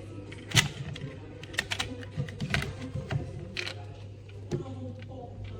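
Irregular light clicks and taps, a dozen or so, the loudest about half a second in, over a steady low hum.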